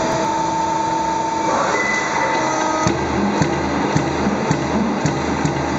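Boschert TRI CNC sheet-metal punching machine running with a steady whine. From about three seconds in it punches the sheet in regular strokes, about two a second.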